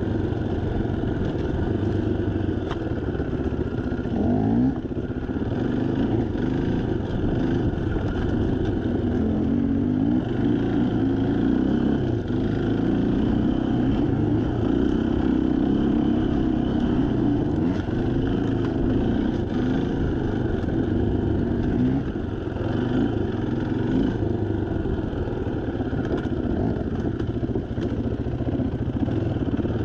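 Dirt bike engine running under constantly changing throttle, the revs rising and falling again and again, heard from on the bike itself.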